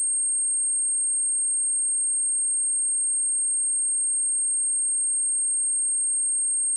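A steady, unbroken pure sine tone at 8534 Hz: a single high-pitched whistle-like test tone that holds one pitch and one level throughout. It is used as a speaker and headphone test tone and as a speaker-cleaning tone.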